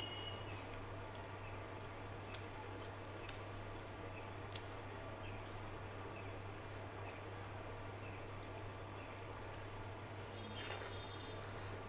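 Fingers mixing rice and dal on a plate: faint wet squishing with a few sharp clicks, then a handful taken into the mouth near the end, all over a steady low hum.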